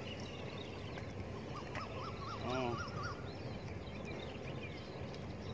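A bird calling briefly, a quick series of up-and-down notes about two seconds in, over a steady low outdoor hum.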